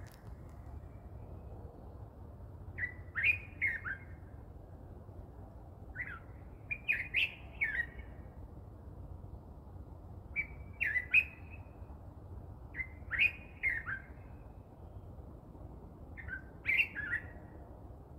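A songbird singing a short phrase of several quick, sliding notes, repeated about five times with pauses of a few seconds between, over a steady low background hum.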